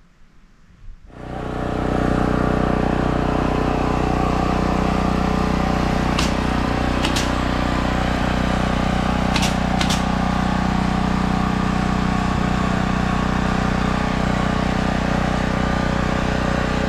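An engine running steadily at an even speed, coming in about a second in, with a few short high clicks over it around the middle.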